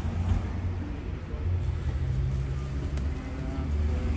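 Steady low rumble of road traffic: a motor vehicle engine running close by.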